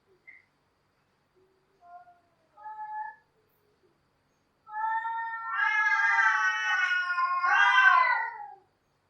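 Cats yowling: two short calls about two and three seconds in, then one long drawn-out yowl of about four seconds that wavers and drops in pitch at the end.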